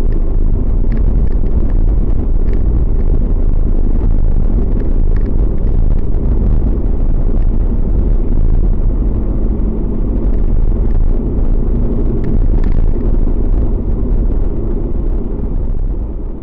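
Steady low rumble of road and engine noise inside a car cruising at highway speed, fading out near the end.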